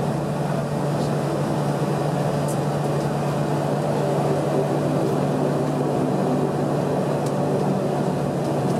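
Steady cabin drone of a Bombardier Dash 8-400 turboprop taxiing, its Pratt & Whitney PW150A engines and propellers running at low ground power, with a constant low hum under it.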